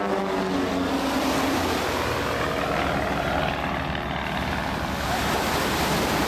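Van's RV-8 aerobatic propeller aircraft flying past, the engine drone falling in pitch as it passes in the first second or so, then giving way to a steady rushing noise of engine and surf.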